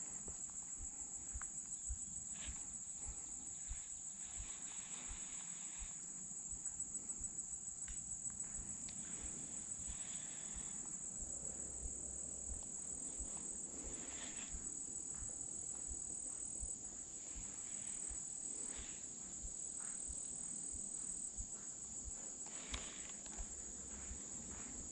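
Insects trilling in one steady, high, unbroken chorus, with scattered soft knocks and rustles close by.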